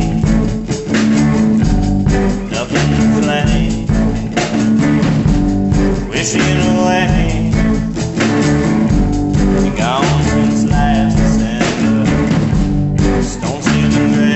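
A rock band's recorded song: guitar over bass and drums with a steady beat.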